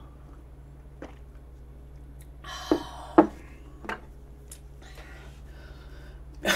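Drinking from a glass of milk, then the glass set down on the wooden table with a sharp knock about three seconds in, followed by a few light clicks.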